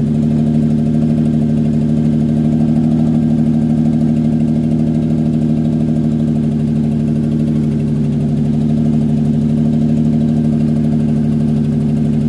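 Toyota 2JZ inline-six engine, swapped into a Mk3 Supra, idling steadily.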